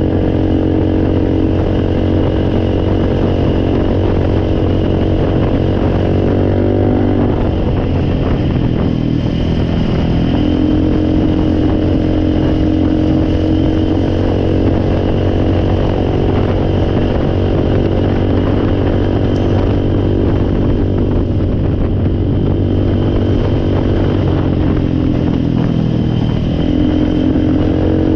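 Four-wheeler (ATV) engine running steadily. Its speed sags and then picks back up twice: about a quarter of the way in and again near the end.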